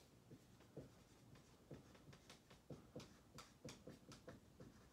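Dry-erase marker writing on a whiteboard: faint, quick, irregular strokes and taps, about two or three a second.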